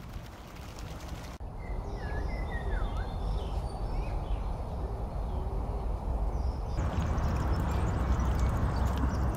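Outdoor garden ambience: small birds chirping on and off over a low rumble. Near the end a louder, steady rushing noise takes over.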